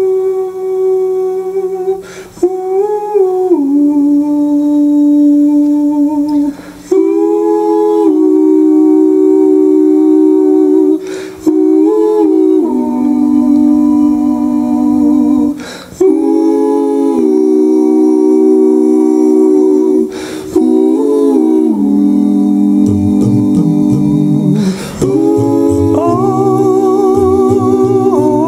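Male a cappella gospel group humming sustained chords in close harmony, in phrases a few seconds long with short breaks between them. A bass voice joins about 22 seconds in, moving below the held chords.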